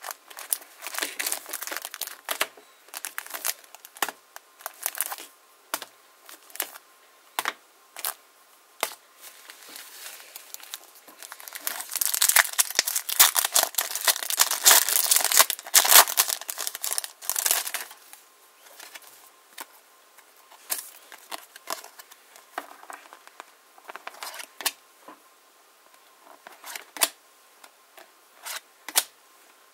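Foil trading-card booster pack crinkling as it is handled and torn open. The crinkling and tearing get dense and loud about twelve seconds in and last about five seconds. After that come scattered short rustles and clicks as the cards are handled.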